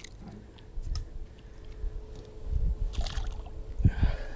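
Water splashing and sloshing as a caught snook is let go over the side of a boat, with a few low handling thumps.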